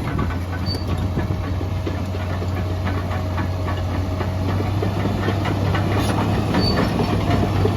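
Case 2050M crawler dozer's diesel engine running steadily, with a faint whine that fades out about halfway through and light clicking rattles throughout.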